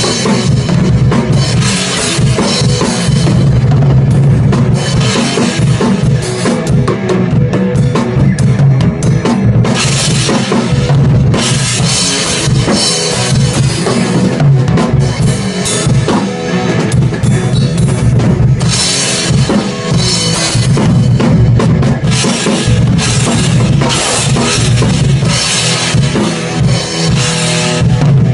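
Progressive-metal instrumental of drum kit and bass guitar only: kick drum, snare and cymbals over a driving bass line, with cymbal washes coming in and out in repeated stretches.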